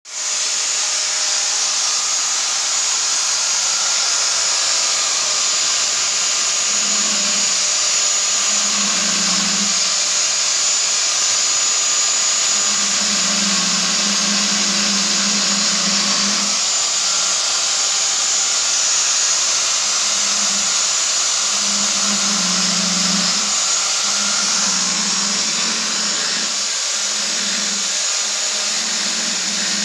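Angle grinder fitted with a core cutting bit running steadily while it grinds a hole into a black granite countertop. A low hum comes and goes under the steady whine from about seven seconds in.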